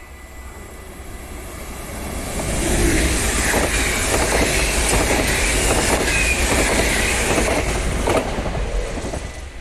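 NS double-deck electric train passing through without stopping. Its rush builds over the first couple of seconds, then there are repeated clacks of the wheels as the carriages go by. The sound drops off sharply about eight seconds in as the last car passes.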